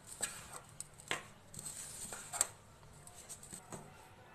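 A hand rubbing and mixing flour with curd and oil in a stainless steel bowl: a faint, soft scraping with scattered light ticks against the bowl.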